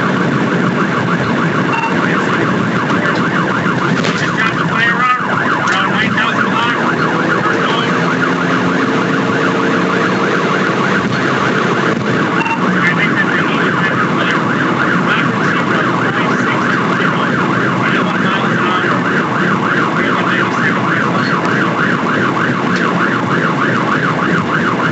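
Police car siren sounding continuously in a fast, rapid warble, over vehicle engine and road noise.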